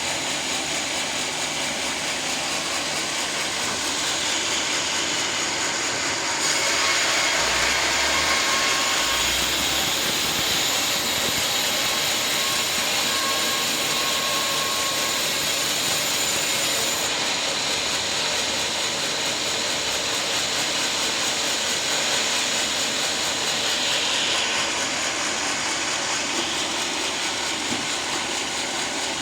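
Sawmill running steadily with its blade cutting through a teak log. The noise gets louder and more hissing from about six seconds in until about seventeen seconds, then settles back.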